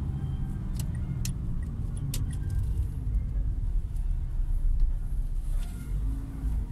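Car cabin noise while riding: a steady low rumble of engine and road, with a few light clicks in the first couple of seconds.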